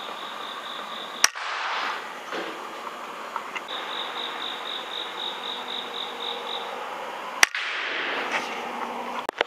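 Two sharp air-rifle shots about six seconds apart, fired at rats, with a fainter sharp click near the end. A high chirping in even pulses, about four a second, goes on behind them.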